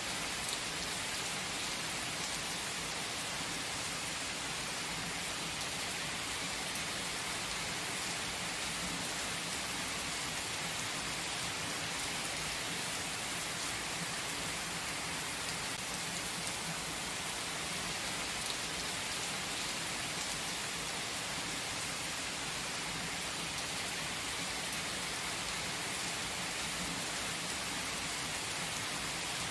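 Steady rain falling in a forest, an even hiss with no breaks.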